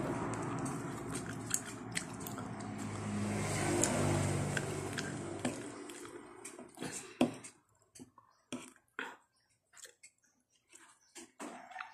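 A motor vehicle's engine fades away over the first half, then close-up chewing and mouth sounds of someone eating jackfruit salad: short wet smacks and clicks with quiet gaps between them.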